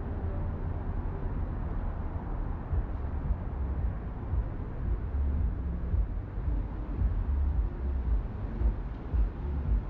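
City street ambience: traffic noise with a low rumble that swells and dips irregularly throughout.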